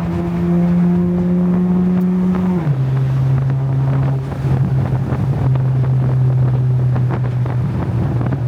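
Honda Civic FD's four-cylinder engine pulling steadily under way, its pitch creeping up, then dropping sharply about 2.7 s in as the car shifts up, and holding steady at the lower pitch, with road and wind rumble underneath.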